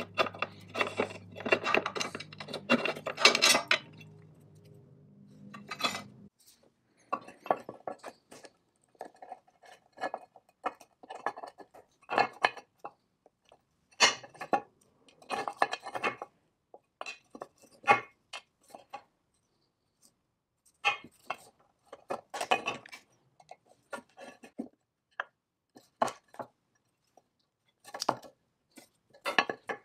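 Small steel parts of a Foley saw filer being taken apart by hand. For the first few seconds a knurled wheel is turned with a rasping rub over a low hum, and the hum stops about six seconds in. After that come scattered clinks, taps and scrapes of a screwdriver and loose metal pieces on the cast-iron base.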